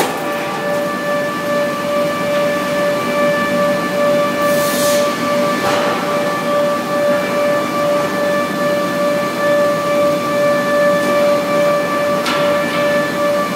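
REX planing machine running with a steady high-pitched whine, a few brief hissing swishes coming and going over it.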